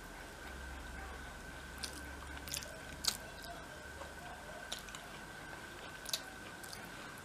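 Close-up chewing of a mouthful of rice and curry, with a few sharp wet mouth clicks and smacks, over a faint steady high-pitched hum.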